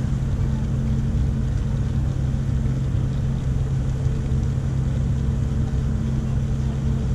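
Car ferry's diesel engines running with a steady low drone across the water.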